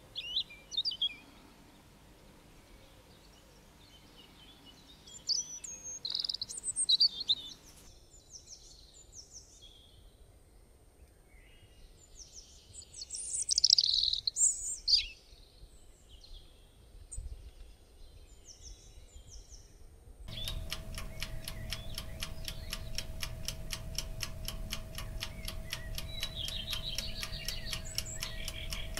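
Recorded birdsong: small birds chirping and singing in short bursts. About two-thirds of the way through, the birds stop and a fast, even ticking begins over a steady tone.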